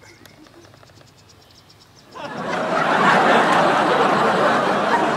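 Drinking from a plastic water sachet held at the mouth: a loud, steady, noisy sucking rush that starts suddenly about two seconds in.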